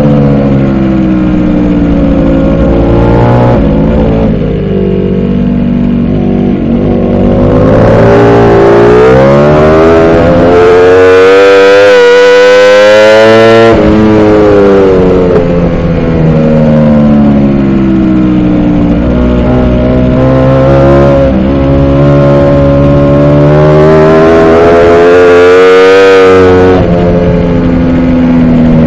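Ducati Panigale V4 R's V4 engine at racing speed, heard onboard with wind rush. The pitch climbs hard for several seconds, drops abruptly about halfway through, sinks slowly, then climbs again and drops near the end.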